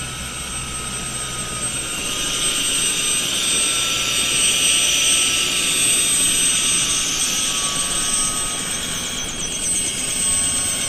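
Helicopter on the ground with its engine running and rotor turning: a loud rushing wash with a steady high whine. It grows louder about two seconds in.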